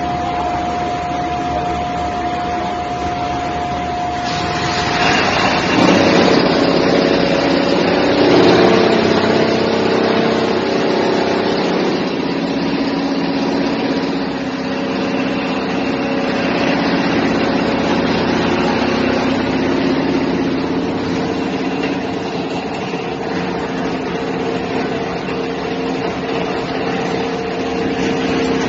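Electric-motor-driven tire strip cutter running with a steady mechanical hum. About five seconds in, its steady whine stops and the sound grows louder and rougher, then settles into a lower steady hum.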